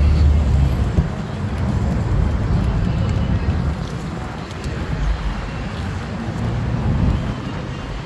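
Wind buffeting the microphone as an uneven low rumble, over the noise of street traffic going by.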